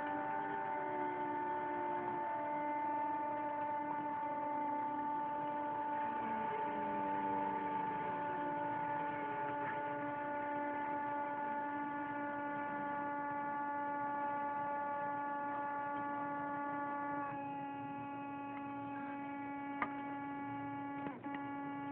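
PWM-driven Tesla coil sounding a steady electrical hum with many overtones. The tone shifts slightly about three-quarters of the way through, and two sharp clicks come near the end.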